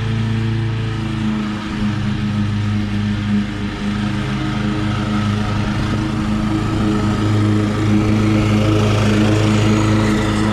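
Walk-behind lawn mower engine running steadily at a constant speed, getting a little louder near the end.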